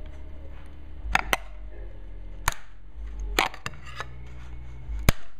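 A knife blade working at a freshly 3D-printed part on a heated print bed, giving about six sharp, irregular clicks and snaps, over a low steady hum.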